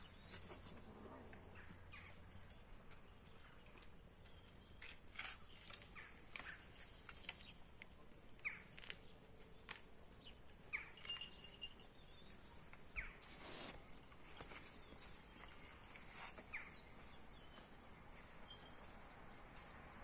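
Quiet outdoor ambience with faint, scattered bird chirps and a few soft clicks, and one brief louder rustle about two-thirds of the way through.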